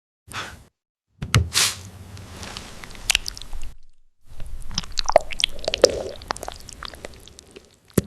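Close-up mukbang eating sounds: a crunchy bite and chewing, in three short stretches broken by brief silences.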